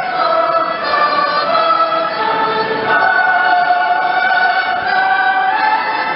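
A choir singing a slow melody in long held notes.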